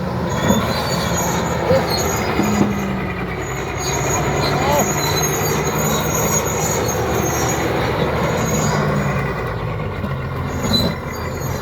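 Komatsu D80A crawler bulldozer at work: its six-cylinder non-turbo diesel runs under load, the note rising and falling as it pushes. The steel tracks squeal and clank over the ground.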